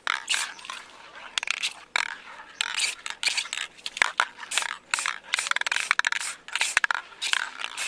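Aerosol spray paint can hissing in a quick series of short bursts, with a few sharp clicks between them.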